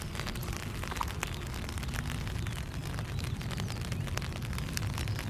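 Steady low rumble of an Airbus A380's engines at taxi power, with rain pattering close by in many quick irregular ticks.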